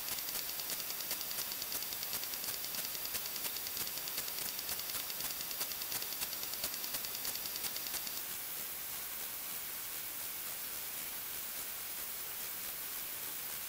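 Steady hiss from an underwater fishing camera's recording, with a rapid, even ticking and a high whine over it. The ticking and whine stop about eight seconds in, leaving the hiss alone.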